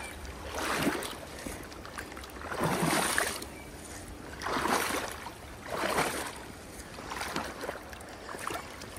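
Shallow river water sloshing and splashing at the bank in surges every second or two, over a steady low rumble.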